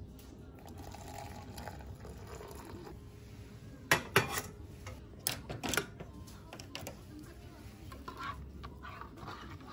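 Hot water poured from a camping pot into a stainless steel mug, then sharp metal clinks as the pot and a spoon are handled, and a spoon stirring in the metal mug near the end.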